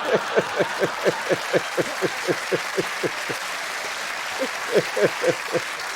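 Studio audience applauding and laughing, with one person laughing hard in quick pitched bursts of about four a second that break off briefly after about three seconds and resume.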